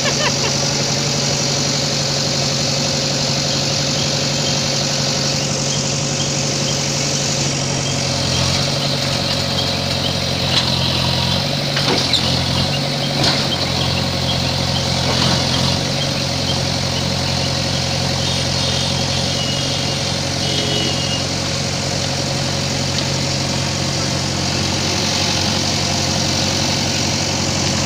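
Diesel engine of a JCB backhoe loader running steadily, with a few knocks and clatters in the middle.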